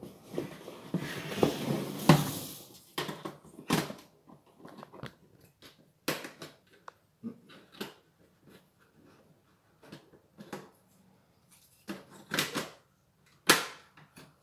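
Handling of the unboxed USB mini air cooler and its packaging: a rustle during the first few seconds, then scattered clicks and knocks of plastic parts being handled.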